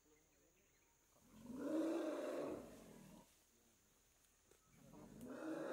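Sri Lankan elephant giving a single pitched call of about two seconds that rises and then falls. A second, quieter call builds just before the end.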